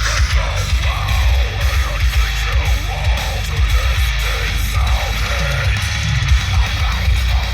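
Heavy rock music with a yelled vocal and guitars, played loud on a car audio test bench, the bass heavy and pulsing from a 12-inch subwoofer driven by a Vevor amplifier.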